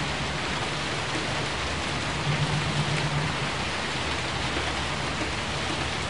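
Steady rain falling, an even hiss with no let-up.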